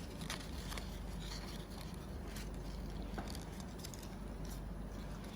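Sheet of paper being folded and creased by hand, with scattered faint crinkles and small taps over a low background hum.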